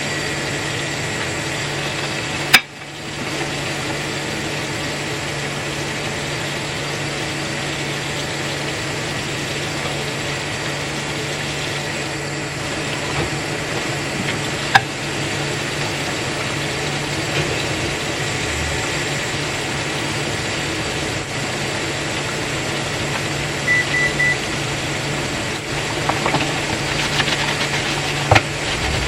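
Steady hum of a running machine, likely a household appliance or fan. A few sharp clicks and a quick triple beep about two-thirds of the way through sit on top of it.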